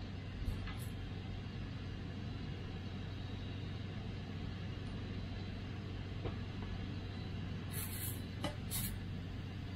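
Steady hiss of a single-burner camp stove on a 1 lb propane bottle heating hot dogs in a frying pan, with a few light clicks and scrapes of a fork against the pan near the end.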